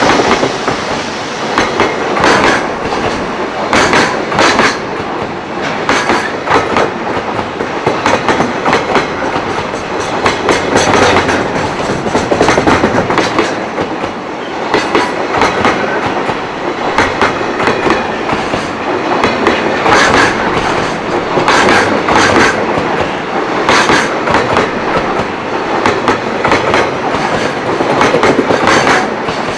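A train running past over rail joints: its wheels clack over the joints in quick repeated groups, over a steady running rumble.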